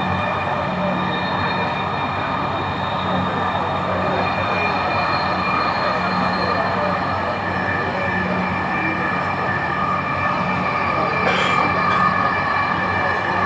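Metro rail train running between stations, heard from inside the carriage: a steady running noise with several steady high tones, growing slightly louder near the end.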